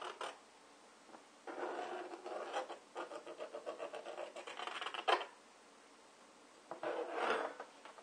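A tool scraping along a thin black plastic wastebasket lid, scoring a line around a fan's rim. It comes as a short scrape at the start, a run of quick squeaky scraping strokes from about a second and a half in to about five seconds, and one more brief pass near the end.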